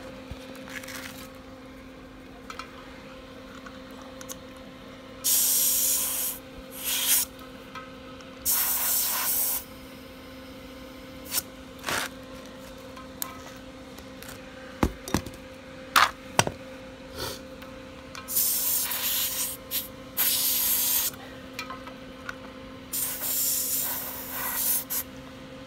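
Several short hissing sprays, each about a second long, with a few sharp clicks between them.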